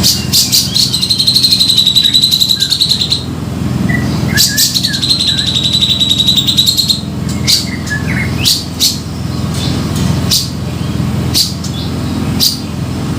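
Cucak jenggot (grey-cheeked bulbul) calling: two long, rapid buzzing trills of two to three seconds each, then a string of short, sharp single notes, over a steady low hum.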